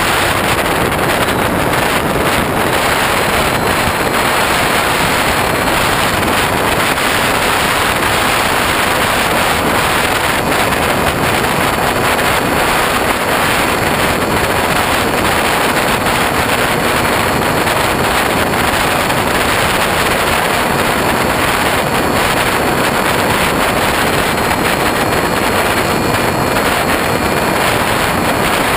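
Steady rush of wind and propeller noise picked up on board a Hobbyking Bixler RC plane in flight, from its electric motor and pusher propeller, with a faint steady whine running through it.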